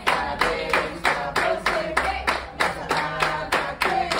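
A group of people singing a birthday song together while clapping in time, a steady beat of about three claps a second.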